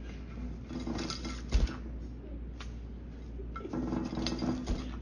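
Green-cheeked conure bathing in a shallow ceramic dinner plate of water: two bouts of wing-fluttering and splashing, about a second each, one a second in and one near the end, with water and the bird clinking and knocking against the plate.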